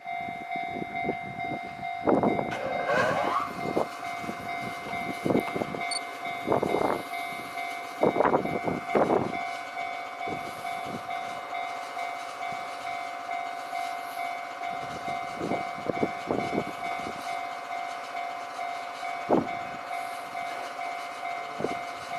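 Japanese railway level-crossing alarm ringing steadily. Over it, a train's wheels clack over rail joints in irregular groups of knocks, the loudest about two, seven, eight to nine and sixteen seconds in.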